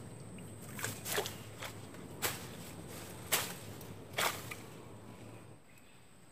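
A wooden stick or stake being jabbed and worked through grass and brush in shallow water, giving about five sharp swishing knocks a second or so apart.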